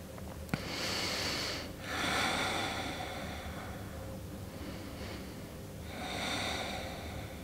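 A woman's deep, slow breathing picked up close on a clip-on wireless microphone: two long breaths one straight after the other, then another about six seconds in. A small click comes just before the first breath.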